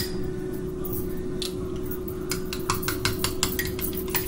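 Metal spoon clinking and scraping inside a glass mason jar of thick sea moss gel: one sharp clink at the start, then a quick run of clinks in the second half, several a second. A steady low hum runs underneath.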